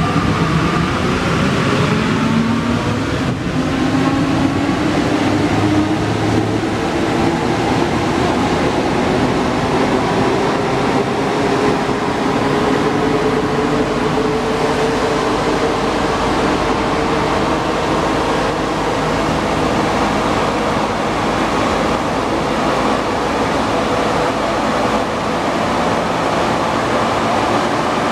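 Alstom NS-93 rubber-tyred metro train heard from inside the car as it pulls away and accelerates: a whine of several tones rises steadily in pitch for about fifteen seconds, then levels off over a constant rush of running noise in the tunnel.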